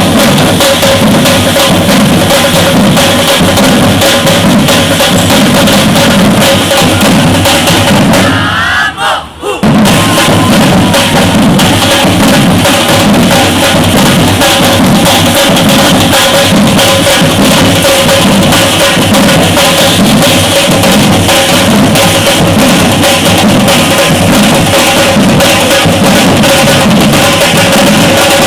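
Batucada drum ensemble playing a loud, driving rhythm on bass drums and snares. The playing stops briefly about nine seconds in, then the whole group comes back in.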